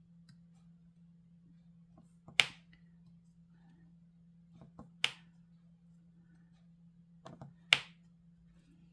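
Sharp clicks and taps of diamond-painting work: the drill pen and resin drills knocking against the plastic drill tray and the canvas. There are three loud clicks about two and a half seconds apart, with lighter ticks between them, over a faint steady low hum.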